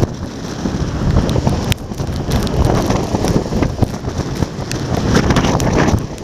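Strong typhoon wind buffeting the microphone over the noise of high surf breaking on a harbour wall, with spray falling as salty rain.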